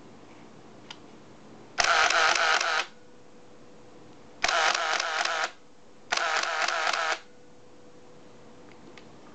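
Nikon F2 Data camera's motor drive firing three continuous bursts of about a second each, the shutter and film advance cycling rapidly in a fast mechanical rattle.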